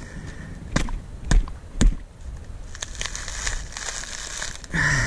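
A coconut being husked on a pointed stick staked in the sand: three sharp thumps in the first two seconds as the nut is driven onto the point, then the crackle and rip of the fibrous husk being levered and torn away.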